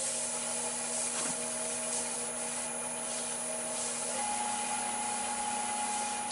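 Abrasive sanding of an olive-wood hollow form spinning on a Laguna 1836 Revo wood lathe: a steady rubbing hiss over the lathe's hum, whose tone steps up in pitch about four seconds in.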